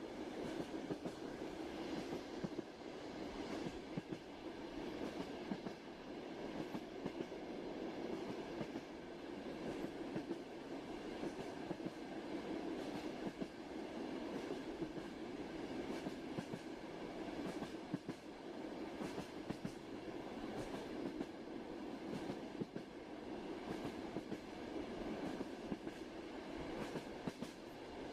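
Train running steadily on rails: a low, even rumble with frequent clicks of the wheels over the track.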